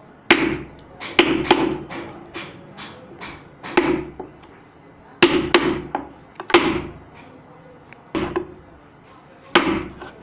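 Hand hammering in a woodworking shop: loud sharp knocks at uneven intervals, each ringing briefly, with lighter taps between them in the first few seconds.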